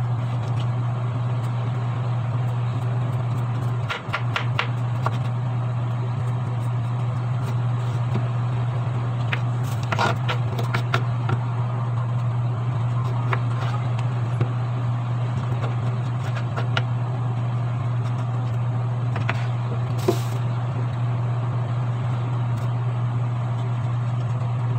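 A steady low hum throughout, with light scrapes and clicks now and then from a kitchen knife peeling a bottle gourd.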